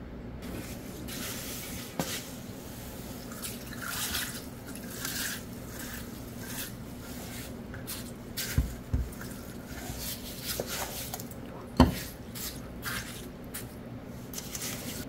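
Icy, slushy dongchimi broth ladled into a bowl of noodles, splashing and trickling, with a few sharp knocks, the loudest about twelve seconds in.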